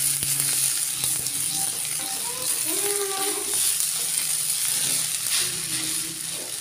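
Rice stir-frying in a wok: a steady sizzle, with a spatula stirring through it.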